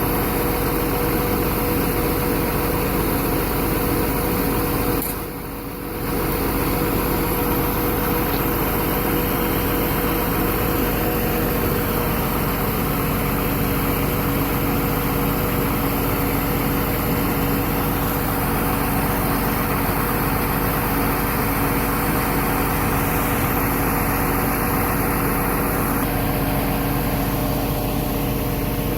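Engine of a 2006 Al-Jon 580 car logger/baler running steadily, dipping briefly about five seconds in.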